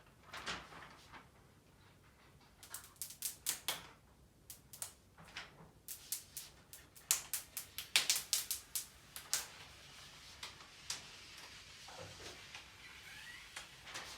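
A run of sharp, irregular clicks and crackles in uneven clusters, densest in the middle, then tapering off to a few isolated clicks near the end.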